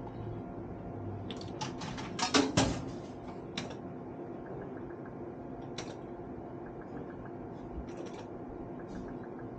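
Sharp mechanical clicks and knocks: a quick run about one and a half to three and a half seconds in, the loudest two knocks near its middle, then a few single clicks spaced out, over a steady background hum.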